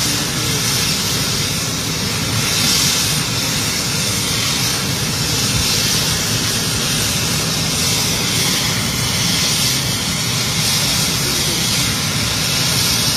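Bell 430 twin-turboshaft helicopter running on the ground with its main rotor turning. The noise is loud and steady, a high turbine hiss over the low beat of the rotor.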